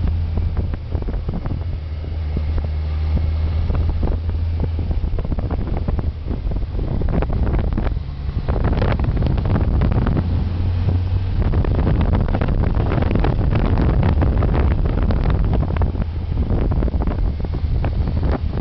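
Wind buffeting the microphone of a moving vehicle, ragged and gusty, over a low steady engine drone.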